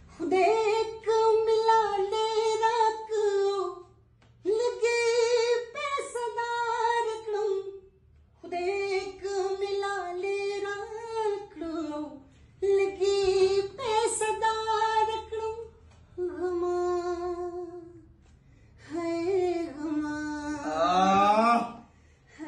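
A man's high voice singing a Pashto poem with no accompaniment. He sings it in held phrases of three to four seconds, with short breaks between them, and the last phrase is a winding, ornamented run.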